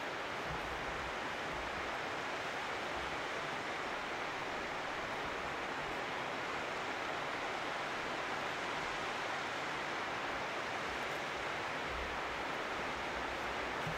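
Steady, even rush of flowing mountain water, with occasional faint low rumbles underneath.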